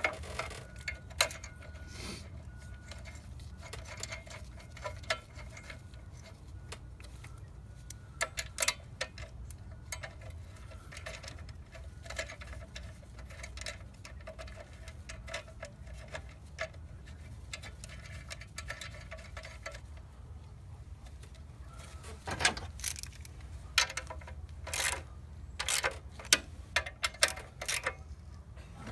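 Plastic engine cover of a Kia Optima being set back in place by hand, with scattered light clicks and taps, over a faint steady low hum. Near the end a socket ratchet clicks in quick, uneven runs as the cover's fastener is snugged down.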